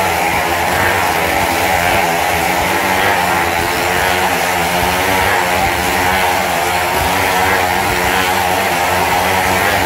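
Several motorcycle engines running hard and steadily as the riders circle the vertical wall of a wooden wall-of-death drum, their pitch wavering slightly as the revs rise and fall.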